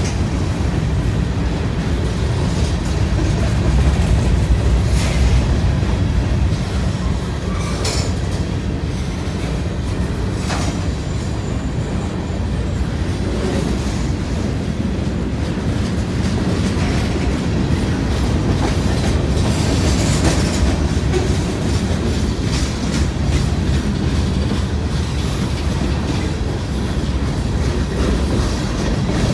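Freight cars of a mixed freight train rolling steadily past: a continuous rumble with wheels clacking over the rail joints and a few brief high wheel squeals.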